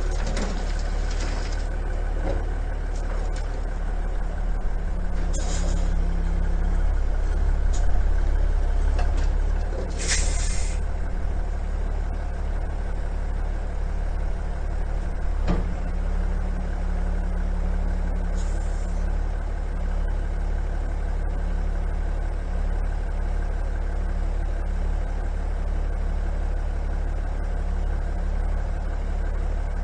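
1983 International Paystar 5000 dump truck running steadily with a low engine sound, with short bursts of air hiss three times, the longest about ten seconds in.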